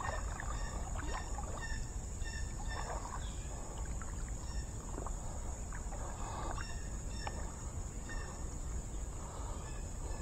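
Creek water sloshing gently around an angler's legs as he wades in the shallows, in soft swells every few seconds. A steady high insect drone runs underneath.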